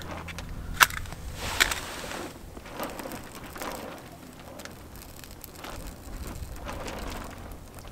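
A wooden match struck on its box: a sharp scrape about a second in, then a brief flaring hiss as it catches. Faint ticks and rustling follow as the lit match is held under dry twigs and birch bark.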